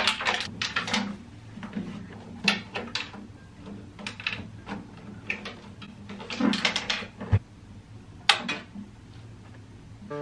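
Acoustic guitar being lifted and swung around overhead: irregular clicks, knocks and clatter from its body and strings being handled.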